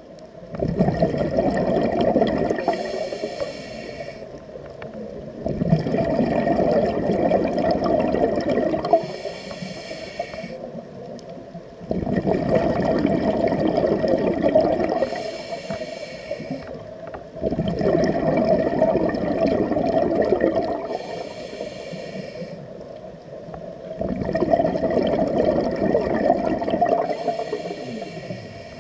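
Scuba diver breathing through a regulator underwater: a short high hiss from the regulator on each inhale and a long rush of bubbles on each exhale, about five breaths, one every six seconds or so.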